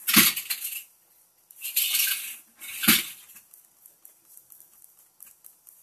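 A coffee mug knocked down on a hard desk twice, about three seconds apart, with a short slurp between.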